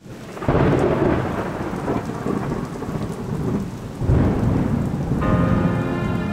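Thunderstorm sound effect: steady rain with two rolls of thunder, the first about half a second in and the second about four seconds in. Music with sustained chords comes in about five seconds in.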